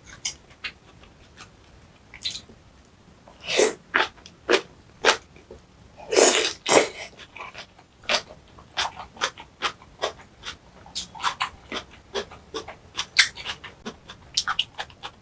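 Close-miked eating sounds: wet mouth smacks and chewing clicks, with two longer, louder mouth noises about three and a half and six seconds in.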